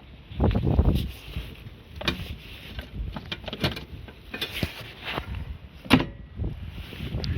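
Wind buffeting the microphone in uneven low gusts, with a few sharp knocks and clicks, the loudest about six seconds in.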